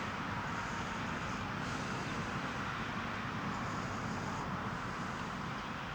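Steady background noise of distant road traffic, an even wash with no distinct events.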